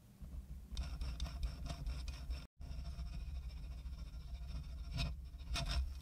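Steel pivot burnisher worked back and forth on a watch escape-wheel pivot while the bow spins it in a Jacot tool: repeated scraping strokes over a low rumble. A brief break comes a couple of seconds in, and the strokes are strongest near the end. The burnishing smooths out scoring on the pivot and work-hardens its surface.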